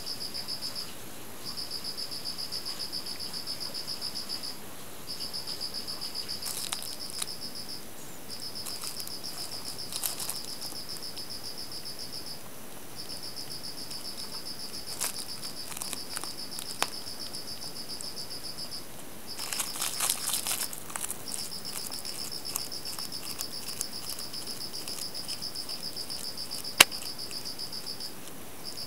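A cricket trilling, a high steady pulsing chirp that breaks off briefly every few seconds. Over it, a plastic bag crinkles in short bursts as the kitten bites and claws it, loudest about two-thirds of the way through, with one sharp click near the end.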